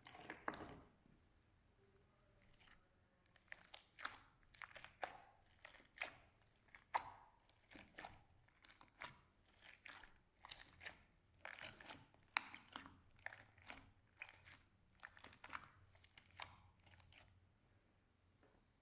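Slime being squeezed and poked by hand, making short crackly pops and clicks. They come at about two a second after sparse first few seconds, and thin out near the end.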